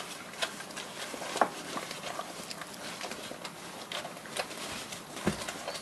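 Kishu puppies nursing and jostling at their mother: irregular small clicks and scuffles of suckling and paws shifting on the newspaper bedding, with a louder knock about a second and a half in and another near the end.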